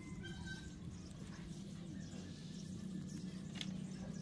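Faint crunching of domestic rabbits chewing cabbage leaves, a few soft ticks, over a steady low hum.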